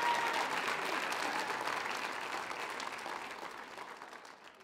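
Audience applauding, with the applause fading out over the last couple of seconds.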